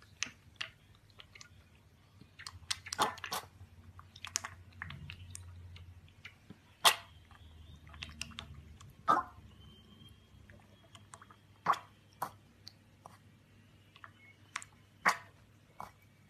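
Piglet slurping milk from a stainless steel bowl: irregular short, wet slurps and mouth smacks, a few louder ones about seven, nine, twelve and fifteen seconds in.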